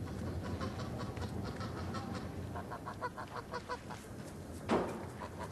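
Domestic geese honking repeatedly in short calls over a low steady rumble, with a brief loud rush of noise near the end.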